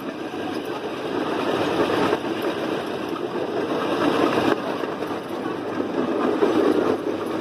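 Miniature park train running along its track, heard from one of its open passenger cars: a steady mechanical running noise with no let-up.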